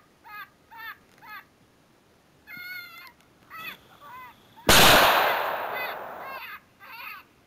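A 6.5 Grendel rifle shot about four and a half seconds in, very loud and echoing away over more than a second. Before and after it, an electronic predator call plays high, squealing distress cries, about two a second.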